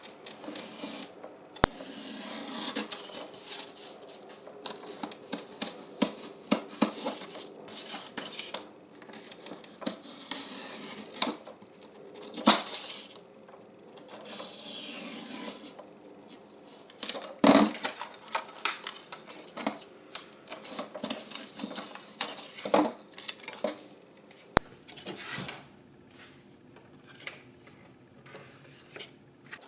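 Hands handling and cutting used polystyrene foam plates: scattered clicks, taps and scraping or rustling. The loudest knocks come about twelve and seventeen seconds in.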